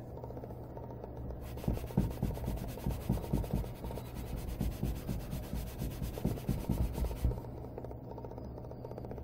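A cloth dampened with isopropyl alcohol is rubbed briskly back and forth over the plastic underside of a Commodore computer case, scrubbing off permanent marker. Quick strokes, about two or three a second, start about a second and a half in and stop about seven seconds in.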